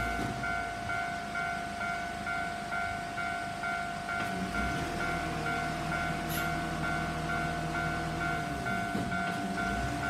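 Japanese railway level-crossing warning bell ringing, an electronic ding repeating about two to three times a second over a steady tone, sounding while the barriers are down to warn of an approaching train. A low hum runs underneath in the middle seconds.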